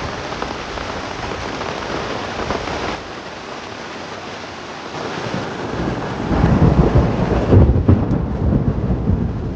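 Heavy rain falling steadily, joined about six seconds in by a louder deep rumble.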